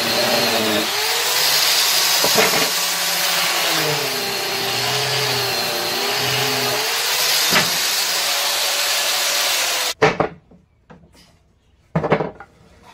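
A handheld electric power tool working wood, its motor pitch wavering as the load changes, then switched off suddenly about ten seconds in. Two short wooden knocks follow, about two seconds apart, as the tool or the workpiece is set down.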